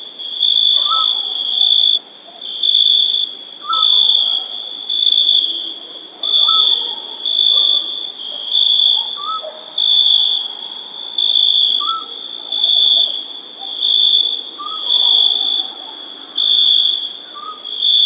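Crickets chirping: a high, steady trill that pulses on and off a little more often than once a second. A fainter short rising call repeats every two to three seconds.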